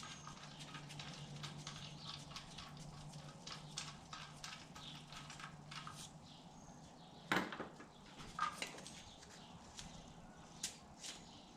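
Engine accessory pulleys being turned by hand with the serpentine belt off, to check their bearings. The pulleys give a faint run of light ticks, and there is a sharper knock about seven seconds in.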